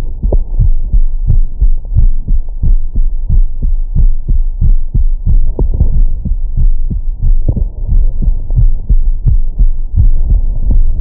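A man's heartbeat heard through a Stemoscope digital stethoscope on the chest, on its 20–1000 Hz setting: a steady, regular run of lub-dub beats with a deep, loud bass thump.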